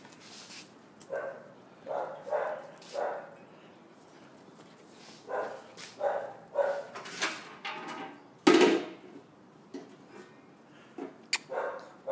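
Puppies barking: short high yaps in clusters of two or three, with one louder, rougher bark about eight and a half seconds in and a sharp click near the end.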